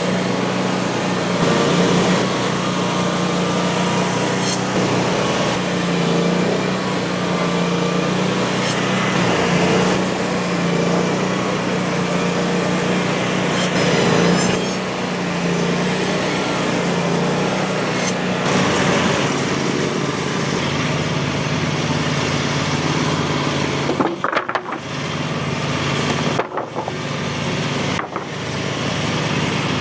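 Frontier OS35 portable band sawmill running on its small engine, with a steady hum and a broad hiss from the band blade as it cuts a board through a tulip poplar log. There are a few brief dips in the sound near the end.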